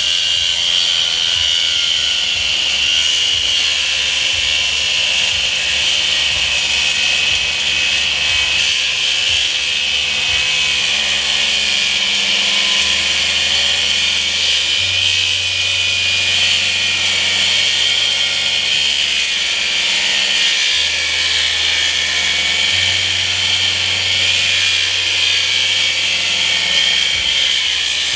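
Battery-powered power tool running steadily under load with a continuous high whine as it works through a cast-aluminum and rubber motor mount.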